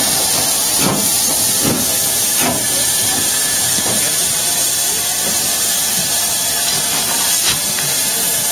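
Southern Railway King Arthur class 4-6-0 No. 30777 Sir Lamiel moving slowly past at close range, with a steady steam hiss and soft regular beats about every three-quarters of a second.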